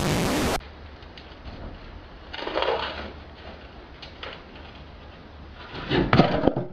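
A short burst of hissing static, then a heavy precast concrete well ring falling from a truck bed and hitting the ground about six seconds in, a cluster of sharp knocks as it lands and cracks apart.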